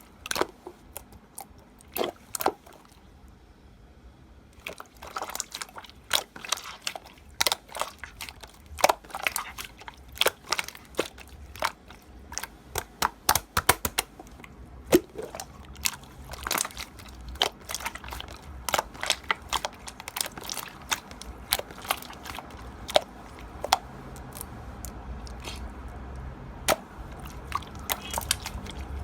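Slime being squeezed and poked by hand, giving irregular crisp clicks and pops, with a short pause about three seconds in.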